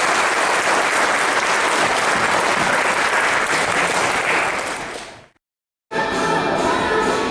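Audience applauding, which fades out about five seconds in; after a moment of silence, music starts.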